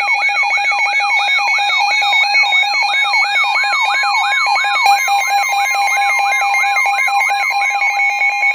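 Electronic weather-radio alert alarm: steady high tones layered with a falling warble that repeats about three times a second, with another steady tone joining a few seconds in. It signals that a new warning is being issued, here a blizzard warning.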